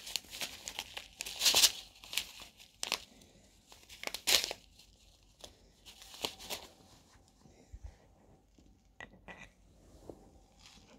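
A foil sachet of desiccant beads for a Hill MK4 pump's dry pack being torn open and handled: short sharp tearing and rustling in several separate bursts, the loudest about a second and a half and about four seconds in.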